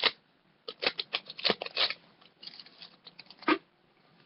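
Foil Pokémon booster pack wrapper being torn open and handled: a run of irregular sharp crackles and rustles, loudest at the very start and again about three and a half seconds in.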